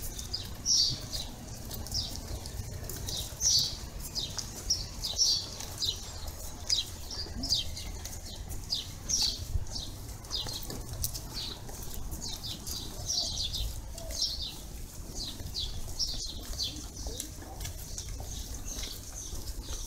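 Small birds chirping over and over, short high chirps coming irregularly about once or twice a second, over a low steady background rumble.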